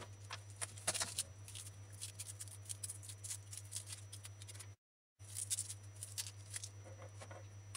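Faint clicks and papery rustling of hands peeling garlic cloves and handling vegetables on a tabletop, over a steady low electrical hum. The sound drops out completely for a moment about halfway through.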